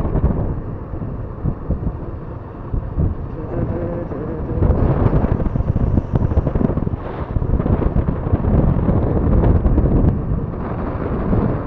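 Wind buffeting the microphone on a moving motorcycle, a dense low rumble mixed with the bike's running and road noise; it grows louder about five seconds in.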